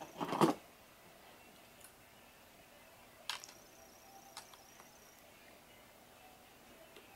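A short, loud rattle as a hand rummages in a cardboard box of toys, then a sharp click about three seconds in and a few lighter clicks as plastic toy train track pieces are handled and fitted together.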